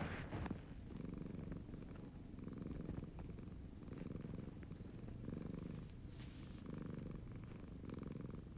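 Siamese cat purring close up, a low purr that swells and eases with each breath, about every second and a half. A brief rustling noise right at the start.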